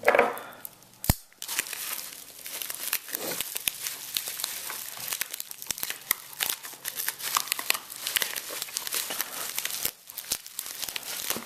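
Overwrap packaging crinkling and tearing as it is handled and opened, with a sharp click about a second in.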